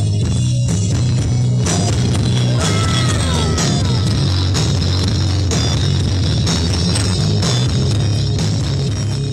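Music played at high volume through a towering stack of disco-mobile speaker cabinets, dominated by heavy bass. A few falling gliding tones come in about three seconds in, and the level begins to fade near the end.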